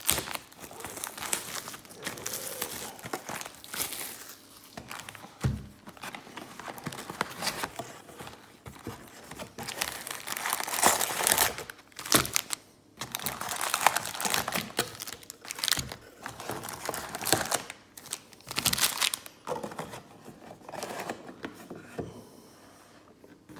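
Plastic shrink-wrap crinkling and tearing as a sealed box of trading-card packs is cut open and unwrapped, in irregular bursts that grow quieter near the end.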